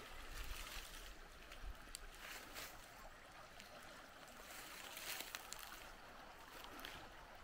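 Faint, steady rushing of a small woodland brook flowing, with a few soft rustles on top.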